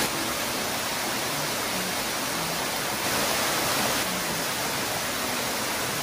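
Waterfall rushing: a steady, unbroken roar of water falling onto the rocks.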